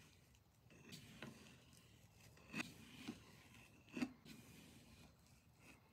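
Kitchen knife slicing through a banana, the blade scraping through the fruit and tapping the plastic cutting board: several soft cuts spaced out, the loudest about four seconds in.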